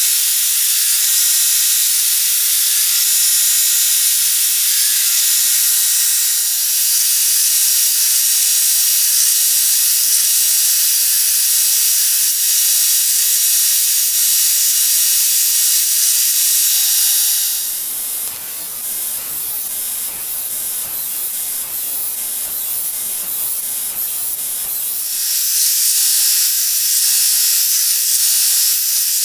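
Belt grinder grinding a leaf-spring steel knife blade against its abrasive belt: a steady, high hiss with a faint motor whine. From about 18 s to 25 s the sound turns rougher and fuller and slightly quieter, then returns to the steady hiss.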